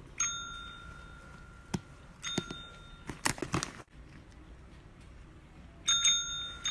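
A desk call bell struck by a cat's paw. It gives a clear ding near the start, a softer ding about two seconds in, and two quick dings near the end, each one ringing on and fading. A short flurry of taps and scuffling comes about three seconds in.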